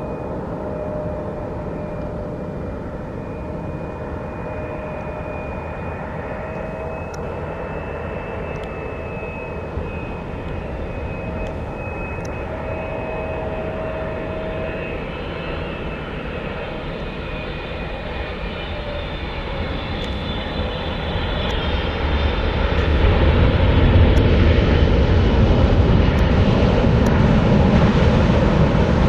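Boeing 777-300 jet airliner arriving to land, its twin engines giving a steady whine with slowly drifting tones over a rumble. About three-quarters of the way through a deep rumble swells and the sound grows much louder as the aircraft comes close.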